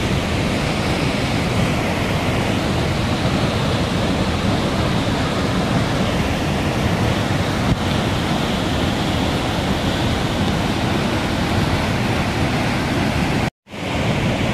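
Muddy floodwater rushing and cascading down over boulders, a steady loud rush of water. The sound cuts out for a moment near the end.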